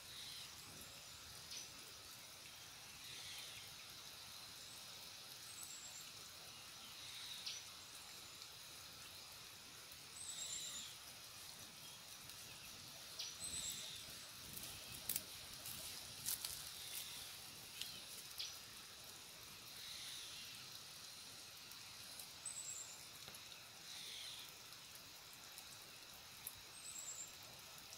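Faint outdoor ambience: short, high bird chirps repeating every few seconds over a steady high hiss, with a few sharp clicks about halfway through.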